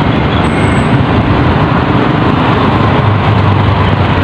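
Loud steady rush of wind and road noise from riding along a roadside lane, with a low steady hum beneath it.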